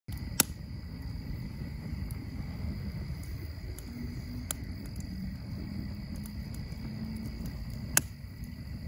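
A steady, insect-like high trill over a low rumble, with sharp clicks about half a second in, about four and a half seconds in, and near the end.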